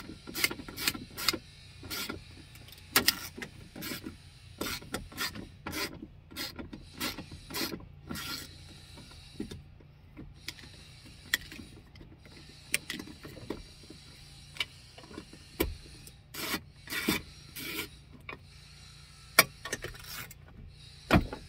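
Hand ratchet clicking in short, irregular bursts as the window regulator bolts are backed out, with metal parts rattling inside the car door.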